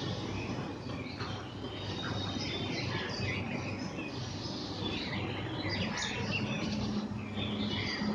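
Black drongos calling: a busy run of short whistled and harsh notes, some sliding up or down in pitch, over a low steady hum.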